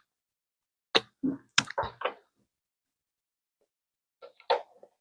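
Short lip smacks and mouth clicks of someone tasting salad dressing off a spoon: about five in a quick run a second in, and a few more near the end.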